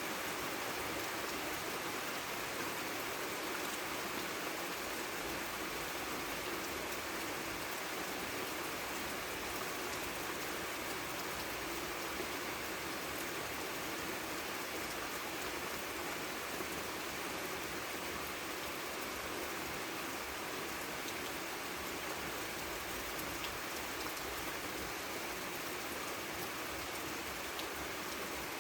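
Light rain falling steadily, a constant hiss of drops with faint scattered pattering.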